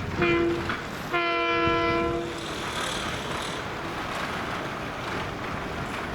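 Long Island Rail Road train horn sounding one short blast, then a longer one, over the rumble of the passing train.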